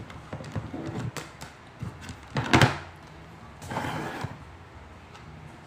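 Knocks and clicks from a handheld digital multimeter being handled and stood upright on a wooden table, with one loud knock about two and a half seconds in and a brief scrape about a second after it.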